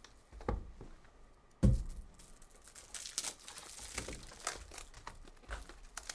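Foil trading-card pack wrappers crinkling and tearing as packs are ripped open and cards handled, with a single thump about a second and a half in.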